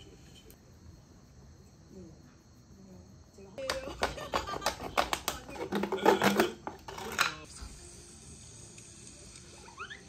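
Clear plastic drink bottle crackling and crinkling as a knife cuts into it: a dense run of sharp clicks for about three and a half seconds in the middle. A short rising squeak comes just before the end.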